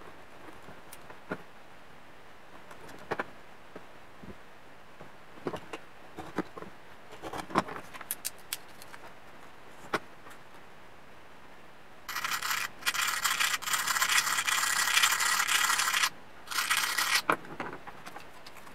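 Scattered light clicks and taps of a knife, a steel ruler and small pieces of composite reed sheet being handled on a plastic cutting mat. About two-thirds of the way through comes some four seconds of loud, harsh scraping, then a second shorter scrape, as the reed material is cut and trimmed.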